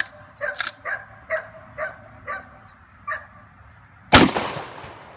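A dog barking repeatedly, about two barks a second, then a single loud shot from a 12-gauge Model 1887 replica lever-action shotgun about four seconds in, its report dying away over about a second.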